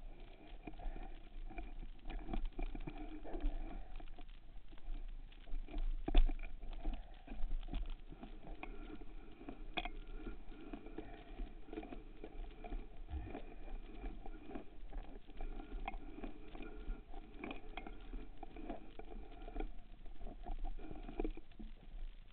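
Underwater sound through a camera's waterproof housing: a steady low hum under constant faint crackling and rubbing from the handling of a speargun with a speared pike on its shaft. A sharp knock comes about six seconds in and a smaller one near ten seconds.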